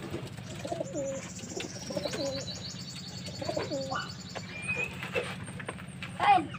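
Racing pigeons cooing repeatedly in their loft. A rapid, high chirping trill runs for a couple of seconds from about a second and a half in.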